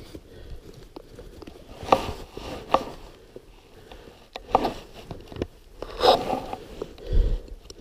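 Snowshoe steps crunching in deep snow: a handful of uneven steps, roughly a second or more apart.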